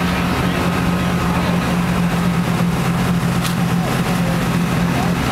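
Boat engine running at a steady pitch while under way, over a constant rush of wind and water noise.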